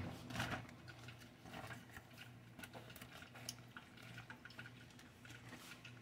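Quiet handling sounds: a few soft clicks and rustles as a zip-top plastic bag of fish fillets in hot sauce is lifted and moved, over a low steady hum.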